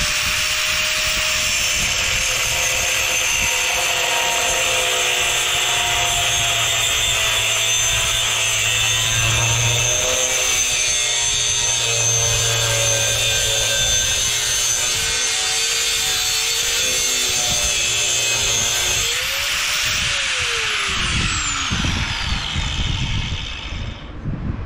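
DeWalt angle grinder with a cutoff wheel cutting through 1½-inch aluminum pipe, the motor running steadily under load with a grinding hiss. About 19 seconds in, the wheel comes free of the cut, the motor pitch rises briefly, and then the grinder winds down after being switched off.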